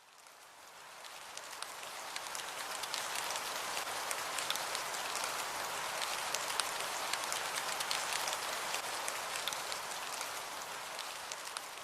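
Steady rain with many small drop ticks, fading in over the first couple of seconds and fading out at the end.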